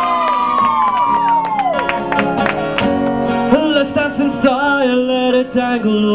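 Acoustic guitar strummed live with a man singing into the microphone from about three and a half seconds in; over the first two seconds several falling whoops from the crowd die away.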